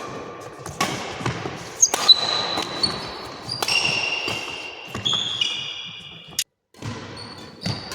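Court sounds in a large hall: sharp hits and thumps, with several high, steady squeaks that overlap and break off, typical of shoes squeaking on an indoor court floor during badminton play.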